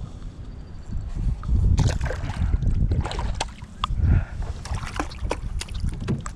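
Knocks and clatter from handling in a small fishing boat, a run of sharp taps through the second half, over a steady low wind rumble on the microphone.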